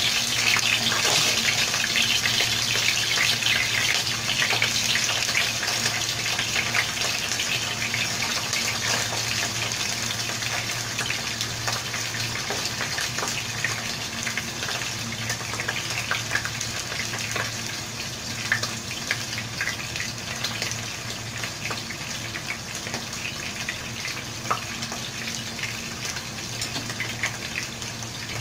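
Whole capelin frying in hot oil in a pan: a steady sizzle full of fine crackles and pops, slowly easing off, over a steady low hum.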